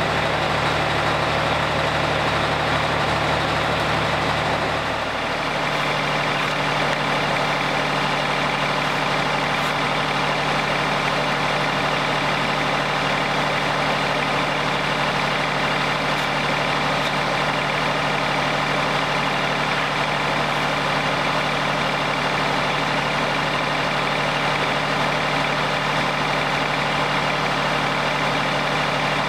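Yanmar diesel engine of a Wood-Mizer LT35 hydraulic band sawmill running steadily under load while the band blade saws a board from a log. The sound changes slightly about five seconds in, then holds steady.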